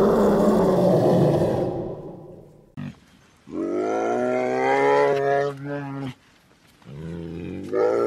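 A large animal's loud, rough roar fades out over the first two seconds. Two long, deep, moaning calls follow, each lasting about two seconds and sinking slightly in pitch.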